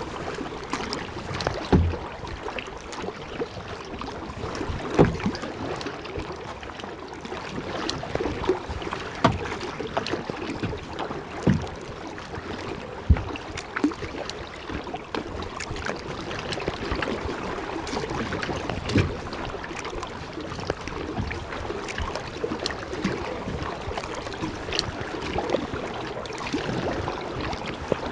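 Kayak paddle strokes in seawater: a short splash or knock every two to three seconds over a steady wash of water and wind.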